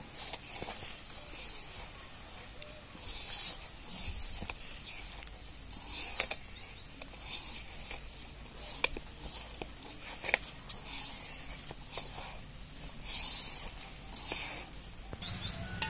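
A hand mixing dry, powdery roasted gram flour into grated beetroot in a metal bowl: dry rubbing swishes about once a second, with a few sharp clicks of fingers against the bowl.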